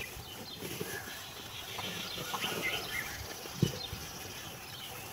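Cattle munching and rustling chopped dry straw feed at a trough, with scattered crunches and a single sharper knock about three and a half seconds in.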